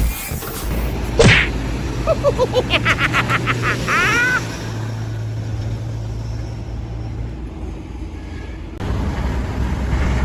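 A vehicle engine running steadily with a low hum. In the first few seconds there is a sharp sweep, then a quick run of repeated pitched pulses and some rising glides.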